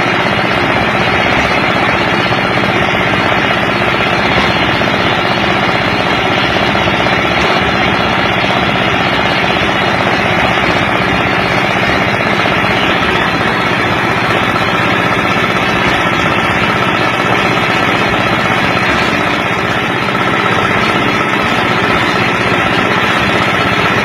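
A machine's engine running steadily and loudly, unbroken throughout.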